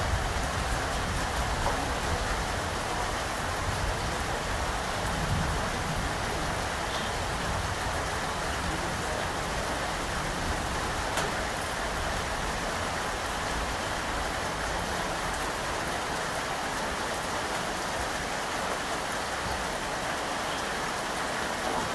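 Steady, dense rainfall. A low rumble underneath fades away over the first several seconds.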